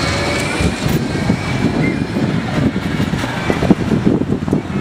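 Bombardier Flexity 2 tram pulling away along the track, its thin electric whine fading in the first second or so. Under it, an irregular low rumble of wind buffeting the microphone.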